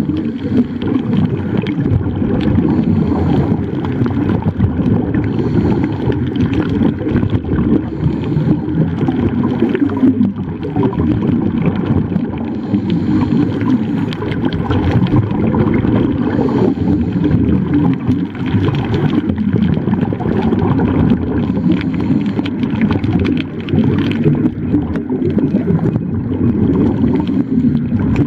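Muffled underwater noise picked up through a camera's waterproof housing: a steady low rush of water with crackling air bubbles.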